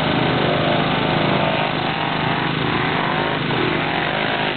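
Formula Offroad hill-climb buggy's engine revving hard under full throttle as the car spins its wheels in loose sand on a steep climb, the pitch wavering as the revs rise and fall. The commentator wonders whether the engine is not running properly as the car bogs down.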